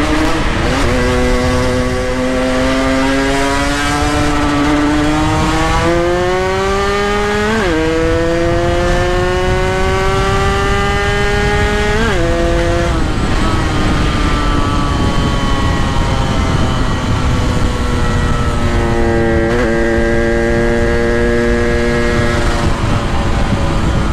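Two-stroke motorcycle engine under way, pulling up through the gears: the pitch climbs and drops sharply at two gear changes, about 8 and 12 seconds in. It then falls away as the bike slows and picks up again near the end, with wind rumbling on the microphone.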